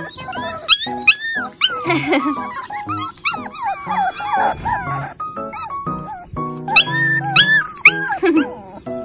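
Two puppies whining and crying together in many short, high whimpers that rise and fall, begging to be lifted up a ledge they are too short to climb. Soft background music plays underneath.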